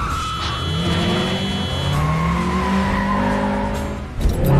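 Car engine accelerating hard with tires squealing, the engine note rising steadily.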